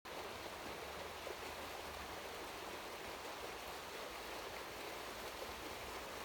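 Steady rush of running water from a stream, even throughout with no distinct events.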